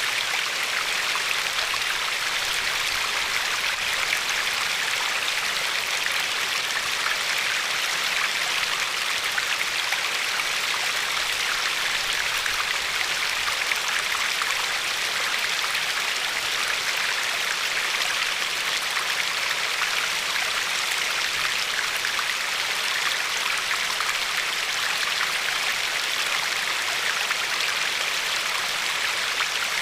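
River water flowing and lapping over a pebbly shore: a steady, even rush with a fine splashing crackle.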